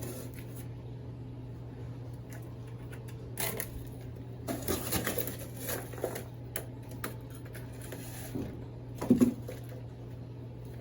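Potting soil being handled and scooped into a container by hand: bursts of rustling, pattering and small clicks, with a louder bump near the end.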